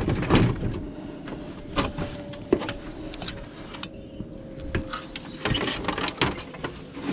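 Rigid plastic back housing of a small CRT TV being lifted off and tipped aside: a run of irregular plastic knocks, clicks and scrapes, the loudest just at the start.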